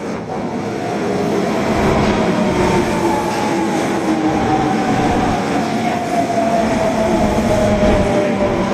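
Osaka Metro Tanimachi Line 22 series subway train running, with a steady rumble of wheels on rail and a motor whine that slowly drops in pitch.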